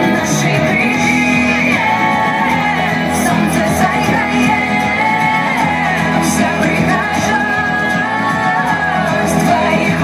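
A recorded song with a sung vocal line, playing for a group dance.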